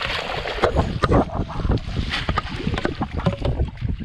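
Wind buffeting the microphone on an open boat, with water slapping against the hull and scattered short knocks and splashes.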